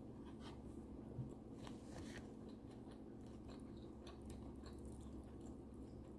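Close-miked chewing of fish and rice: soft, scattered wet smacks and clicks of the mouth over a low steady hum, with one dull thump about a second in.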